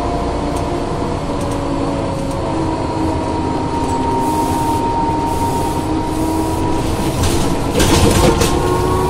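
Ikarus 415 city bus under way, its ZF 4HP 500 automatic gearbox whining over the DAF LT 160 diesel. The whine holds steady, easing slightly in pitch, then begins to rise near the end as the bus picks up speed. A brief hiss comes about eight seconds in.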